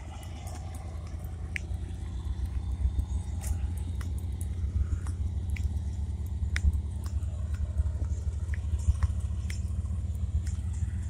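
Steady low rumble of a vehicle on the move, its road and wind noise heard from inside the cabin, growing slightly louder, with scattered small clicks over it.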